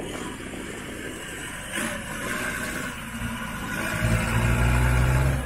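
Engine of a lifted 4x4 pickup on large mud tyres running as it drives through shallow water, with a short sharp burst about two seconds in. About four seconds in the engine grows much louder and deeper under load as the truck climbs out of the water onto the bank.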